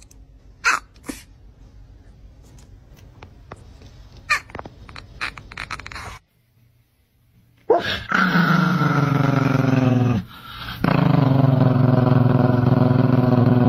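Chihuahua growling: a few faint short yips, then after a brief silence two long, loud, low growls of a few seconds each.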